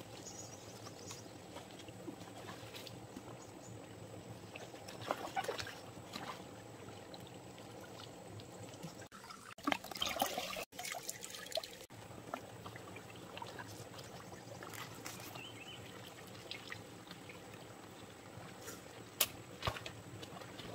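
Shallow stream trickling over rocks, with a few short splashes from feet wading through the water.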